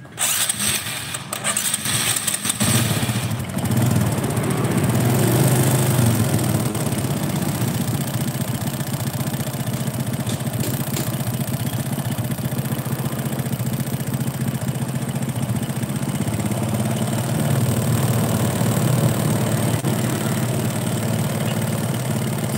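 Honda Supra 125 engine turned over with its spark plug out and held against the cylinder head for a spark test. A few clicks come first, then a steady mechanical run from about three seconds in.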